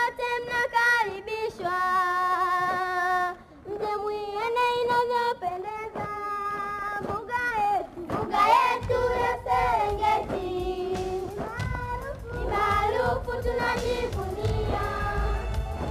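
A group of children singing a song together in unison, in sustained, bending phrases. A low rumble sits underneath from about nine seconds in.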